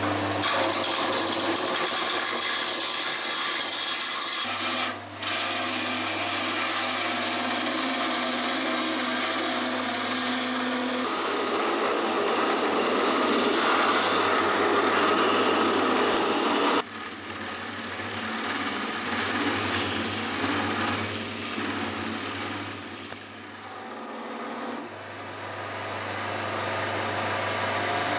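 Lathe motor running with a steady hum while a turning tool cuts and scrapes the spinning wooden dolçaina body. The cutting noise drops to a softer scraping after about seventeen seconds and grows louder again near the end.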